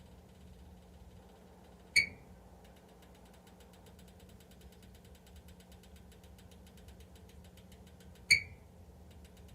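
Kaiyi electric heater making its abnormal noise: two sharp metallic pings about six seconds apart, each ringing briefly, over a faint steady hum.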